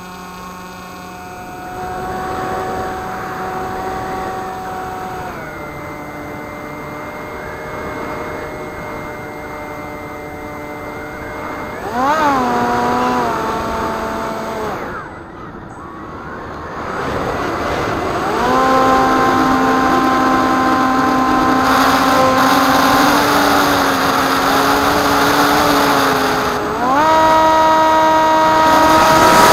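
Model flying wing's motor and propeller whining, heard from the onboard camera, with the pitch stepping up and down as the throttle changes. It cuts out for about two seconds halfway through, then climbs again. Wind rush builds in the last third, and the sound is loudest near the end.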